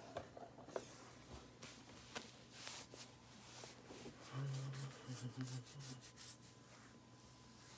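Faint rustling and light clicks of a trading-card box and its packaging being handled, with a brief low muffled hum about halfway through.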